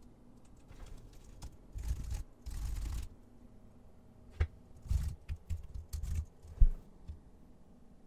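Computer keyboard typing in irregular runs of keystrokes, with a pause in the middle and one sharp, loud key strike near the end.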